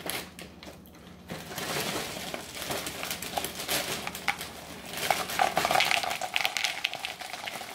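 Plastic cereal-bag liner crinkling as it is pulled open, then small crunchy cereal pieces pouring and rattling into a plastic bowl, loudest about two-thirds of the way through.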